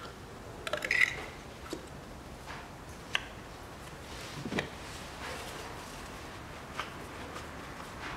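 Ignition coils being pressed down onto the spark plugs of a Volkswagen Tiguan's 2.0-litre petrol engine, giving a few sharp plastic clicks and knocks as they snap into place, the loudest about a second in.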